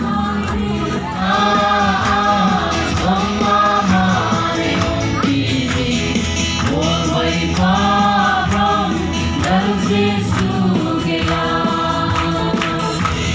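Music: several voices singing together in choir style over instrumental backing, with long held notes.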